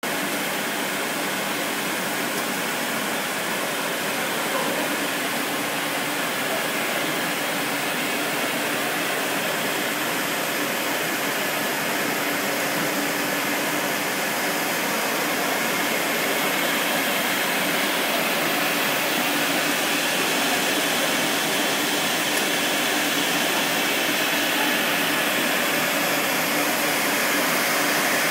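Rubber hose extrusion line running: a steady, even machine noise with a faint hum, growing slightly louder towards the end.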